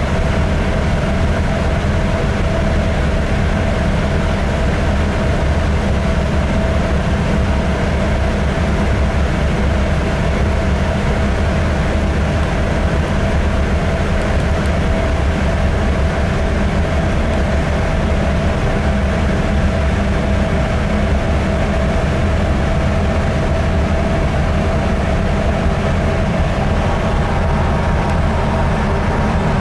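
Engine room of a container ship with its Hyundai main diesel engine running: a loud, steady, unbroken drone with a steady whine on top.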